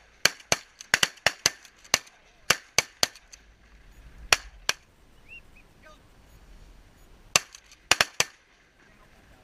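Volley of shotgun blasts from several duck hunters firing together: a rapid flurry of about a dozen shots in the first three seconds, two more a little past four seconds in, then a final burst of four shots near the end.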